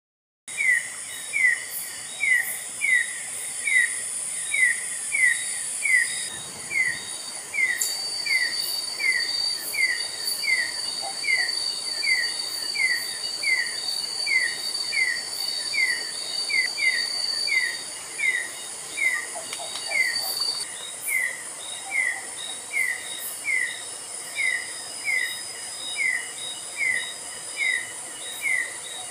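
Forest insect chorus: a steady high-pitched buzz, with a short falling chirp repeated evenly about every two-thirds of a second.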